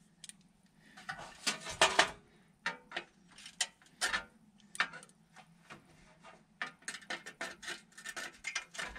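Pliers gripping and bending the thin sheet-metal tabs on a Coleman portable butane stove: an irregular run of metallic clicks, scrapes and rattles from the stove's metal frame, coming thicker toward the end.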